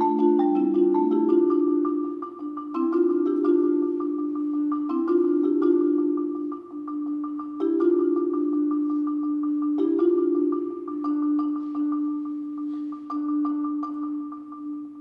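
Solo marimba playing rapid mallet rolls: low sustained chords that shift every couple of seconds under a repeated high note, fading toward the end.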